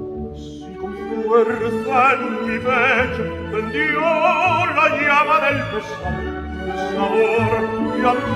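Operatic orchestral music, with a high melody carried on a wide vibrato that is loudest from about a second and a half to six seconds in.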